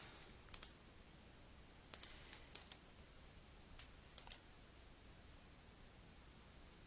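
Faint computer mouse clicks, about eight in all, some single and some in quick pairs like double-clicks, over near silence.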